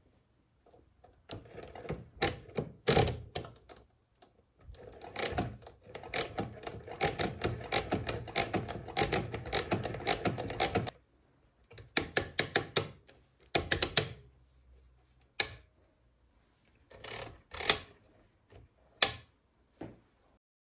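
Odhner Model 8 pinwheel arithmometer being worked by hand, all metal clicking and ratcheting. A few clicks come first, then a dense, steady run of clicks from about five to eleven seconds as the crank is turned. After that come short clusters and single sharp clicks as the registers are cleared back to zero.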